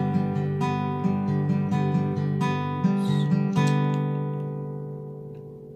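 Acoustic guitar playing the closing bars of a song: a picked pattern of notes, then a final chord struck about three and a half seconds in and left to ring and fade away.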